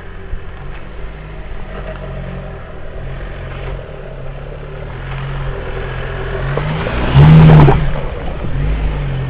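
Car engine running nearby, growing louder and then revving hard for about a second around seven seconds in before dropping back.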